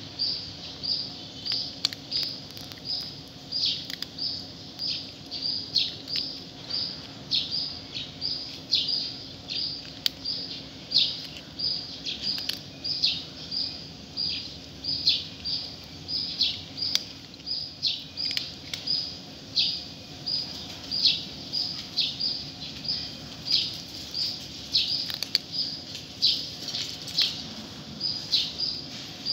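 A cat chewing dry kibble, its small collar bell jingling in time with each chew: short high tinkles and crunches at about two a second.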